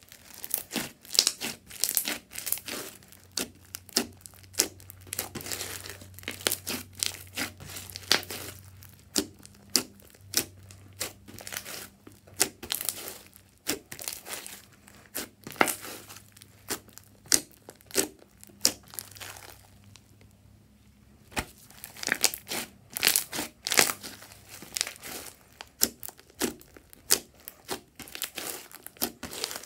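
Hands squishing, stretching and pressing a large mound of purple slime with small foam beads mixed in, making a dense, irregular run of sharp crackling pops and squelches, with a brief lull about two-thirds of the way through.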